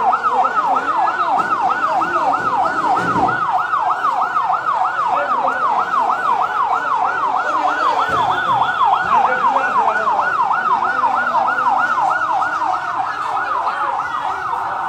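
Emergency vehicle siren in a fast yelp, its pitch rising and falling about three to four times a second, stopping near the end.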